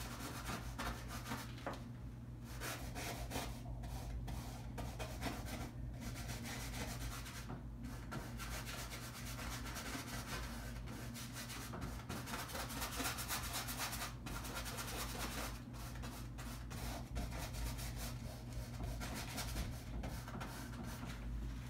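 Paintbrush scrubbing paint onto a canvas in short, irregular back-and-forth strokes.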